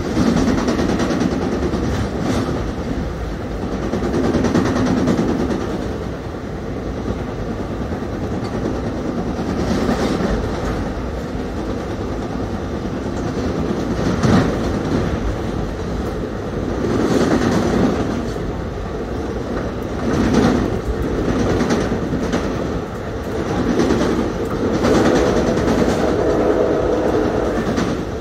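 Inside a Bombardier MultiLevel coach running through a tunnel: loud wheel-and-rail rumble that swells and fades every few seconds, struck through with repeated knocks. The knocks come from a flat spot on one of the car's wheels, which is insanely loud.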